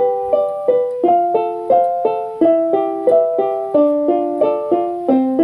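Instrumental music: a piano-like keyboard playing a simple melody with chords, about three notes a second.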